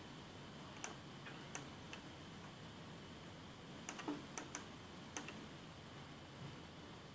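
Quiet, scattered sharp clicks, about ten of them in two clusters, one around a second in and another around four to five seconds in, over a faint room hiss. These are clicks of a laptop's pointing-device buttons while shapes are being drawn in MS Paint.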